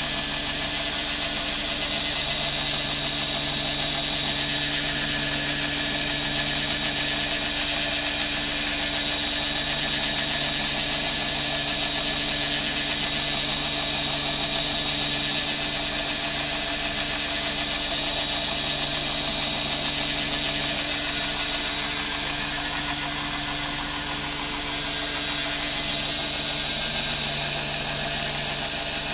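Belt grinder running steadily: a constant motor hum under the hiss of the abrasive belt, with a knife handle held against the belt to face it flat.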